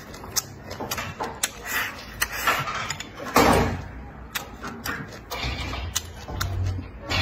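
Close-up chewing and mouth sounds of a person eating a mouthful of greens and meat, with many short wet clicks and smacks. One louder noisy burst comes about three and a half seconds in.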